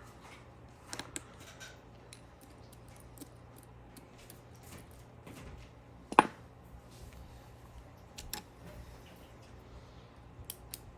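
Scattered small clicks and taps of tools and parts handled during a smartphone teardown, with one sharper click about six seconds in, over a low steady hum.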